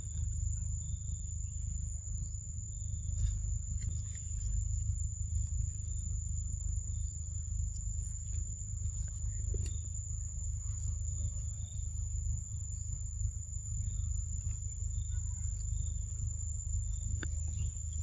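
Forest ambience: a steady high-pitched insect drone over a constant low rumble, with a few faint clicks from leaves and twigs.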